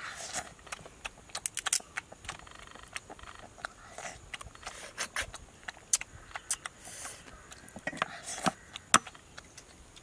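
Crab shell being bitten, cracked and picked apart while eating: a run of irregular crisp cracks and clicks, the sharpest near the end.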